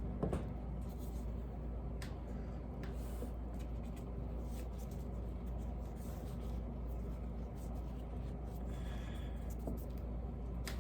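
Faint scratchy scraping and light handling noises, typical of a spatula working soap batter in a container, over a steady low hum.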